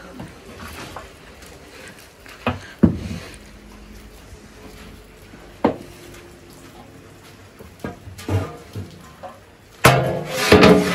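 A long wooden paddle knocks a few times against a big metal cooking pot as thick pig feed is stirred. Near the end a metal lid clatters and rings as it is set onto the pot.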